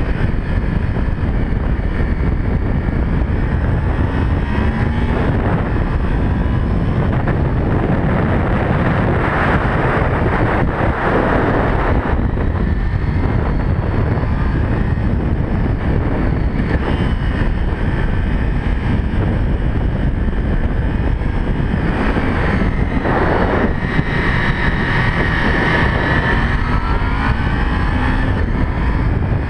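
Sport motorcycle engine running under way, heard with heavy wind rush on the microphone; the engine pitch rises and falls a few times as the bike works the bends.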